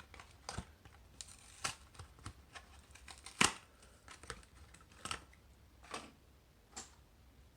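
Irregular clicks, taps and crinkles of a Hot Wheels car's plastic blister pack and card backing being handled and opened, with one sharper click about three and a half seconds in.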